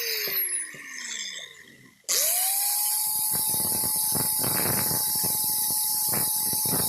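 A handheld electric power tool winding down to a stop, then switched back on about two seconds in, spinning up fast to a steady high whine with irregular rasping strokes as it works.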